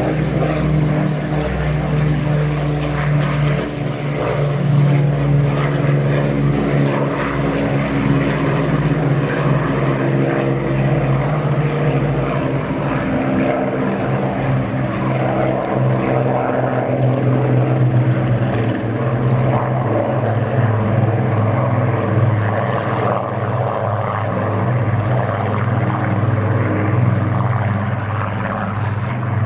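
Avro Lancaster's four Rolls-Royce Merlin piston engines droning steadily as the bomber flies by, a continuous deep multi-toned hum that barely changes in level.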